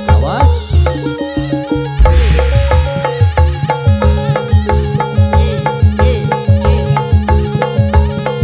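Instrumental dangdut street music: hand drums keep a steady beat under an electronic keyboard melody, with a heavy low hit about two seconds in.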